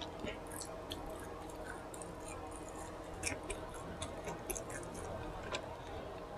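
Faint chewing with soft, scattered wet mouth clicks and smacks, irregularly spaced, over a low steady room hum.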